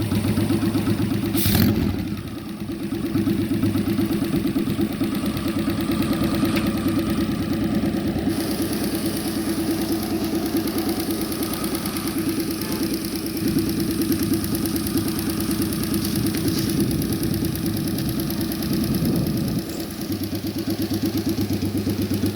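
Custom motorcycle's 1000cc car engine running steadily at a fairly constant speed.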